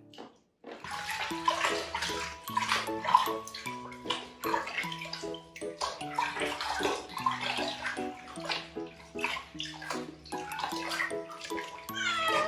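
Water sloshing and splashing as a wet cat is washed by hand in a plastic storage bin, starting just under a second in. Near the end the cat meows once.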